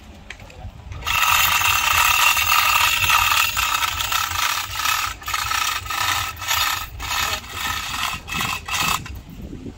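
Harsh scraping starts about a second in, holds steady for a couple of seconds, then breaks into a run of short strokes with brief gaps, and stops near the end.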